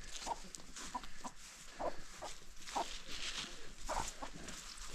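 A flock of free-range hens clucking: a string of short, separate clucks from several birds.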